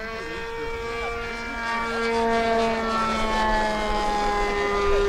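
Skymaster radio-controlled model airplane flying past close overhead. Its motor and propeller make a steady, high-pitched drone that grows louder as the plane comes nearer.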